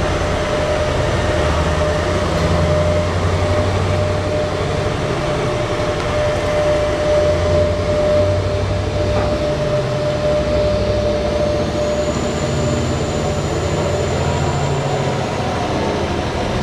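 BelAZ 75710 diesel-electric mining dump truck, driven by MTU 16-cylinder diesel engines, running and driving past with a steady deep drone. A steady whine rides over the drone and fades about two-thirds of the way through. A faint high-pitched whine comes in for a few seconds near the end.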